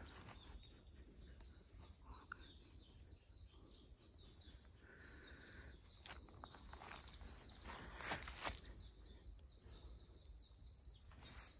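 Faint, rapid high chirping of small birds, many short falling notes. A few footsteps on the leaf-covered path break in, the loudest pair a little past halfway.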